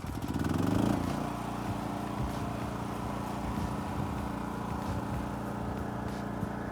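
A motor revving up over about the first second, then running at a steady pitch.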